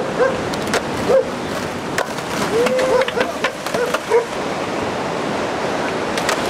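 Skateboard wheels rolling on rough pavement, a steady rumble broken by several sharp clacks of the board. A few short voice-like calls come through faintly about halfway through.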